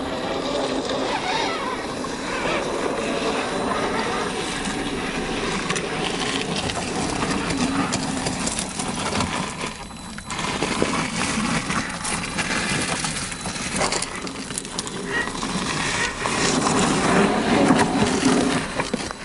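Tamiya CC-01 RC crawler with a 55-turn brushed motor driving over rock and dirt: the motor and gears whine while the tyres crunch and scrape on the ground. There is a brief drop about halfway through.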